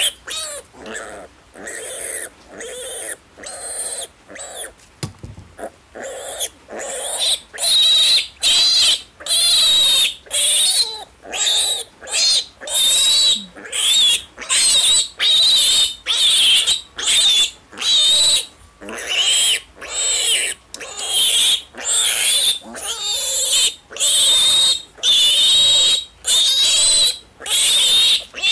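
Piglet squealing over and over, shrill squeals about once a second, quieter and shorter at first and much louder from about seven seconds in: the distress cries of a male piglet being held and castrated.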